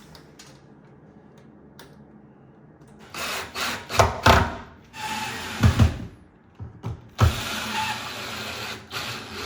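A small power tool, such as a drill-driver, running in several short bursts with knocks and handling noise between them. It starts after about three quiet seconds with faint clicks.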